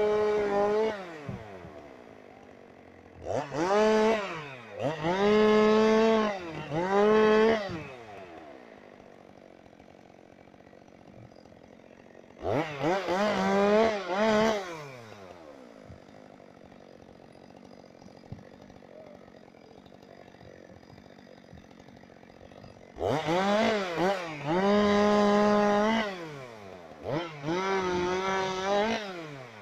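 Two-stroke chainsaw revved to full throttle in about seven short bursts of one to three seconds, each rising quickly to a high steady pitch and falling back to a quiet idle between them, with longer idling stretches midway.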